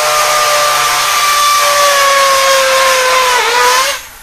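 Electric drill running while boring a hole: a loud, steady whine that sags briefly about three and a half seconds in, then stops near the end.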